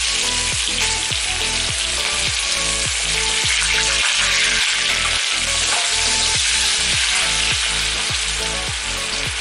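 Chopped red onion sizzling steadily as it fries in hot oil with cumin seeds in a stainless steel pan.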